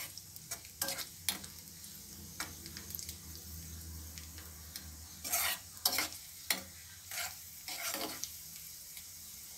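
Raisins frying in ghee and oil in a small pan, sizzling steadily as they plump up, while a steel spoon stirs them and scrapes and clicks against the pan, loudest a little after the middle and again near the end.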